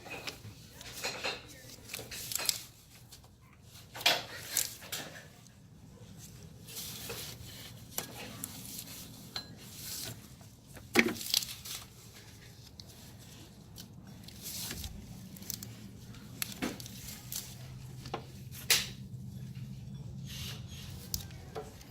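Irregular metallic clinks, knocks and rubbing as a belt is worked by hand around the engine's pulleys.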